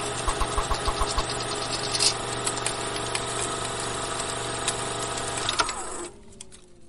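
Film projector running: a steady motor hum with the rapid clatter of the film mechanism. It dies away near the end, its pitch falling as it winds down.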